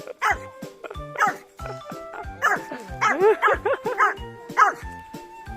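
A dog barking repeatedly, with a quick run of barks in the middle, over background music with a steady beat.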